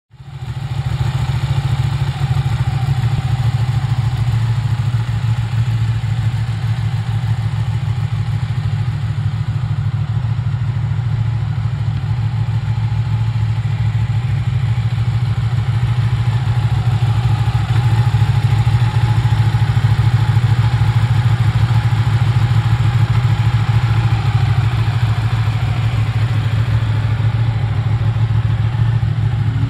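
Ducati Panigale 959's V-twin engine idling steadily.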